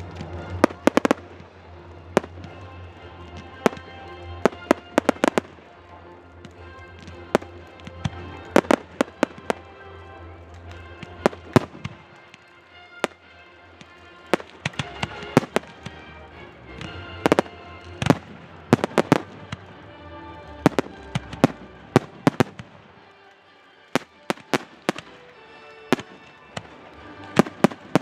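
Fireworks display: aerial shells bursting in quick volleys of sharp bangs, often several a second, with short gaps between volleys. Music plays steadily underneath.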